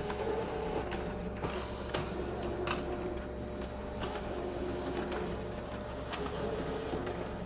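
HP LaserJet M725 copier at work on a two-sided copy job, its document feeder drawing the original through to be scanned: a steady mechanical hum with occasional short clicks.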